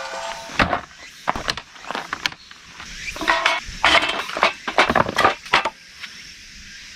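A run of irregular knocks and clinks from hard objects being handled and set down, thinning out about six seconds in.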